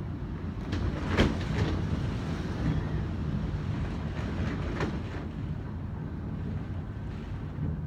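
Strong typhoon wind rumbling steadily across the microphone, with a sharp knock about a second in and another near five seconds.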